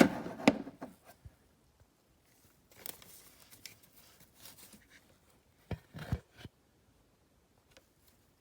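Hands working plastic sensor connectors and wiring in a car engine bay: a cluster of sharp clicks at the start, a stretch of rustling from about three to five seconds in, then a few knocks around six seconds in.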